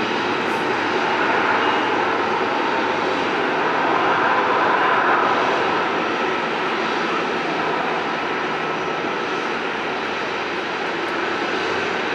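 Jet airliner's engines giving a steady rushing noise that swells about four to five seconds in and then eases slightly.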